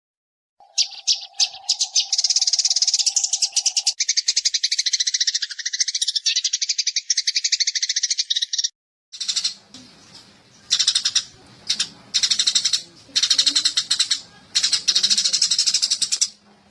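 Eurasian tree sparrows (burung gereja) chirping in fast, tightly packed runs of high chirps. The chirping stops briefly about nine seconds in, then resumes in separate bursts over a low hum.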